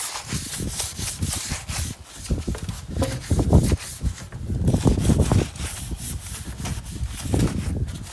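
A cloth rubbed back and forth along a bamboo culm, wiping the grime off its surface: irregular repeated scrubbing strokes, louder around the middle.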